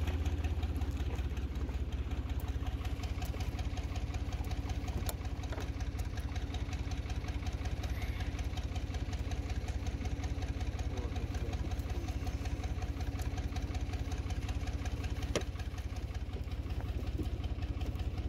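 Tractor engine idling steadily with an even low pulsing hum. A single short sharp knock comes near the end.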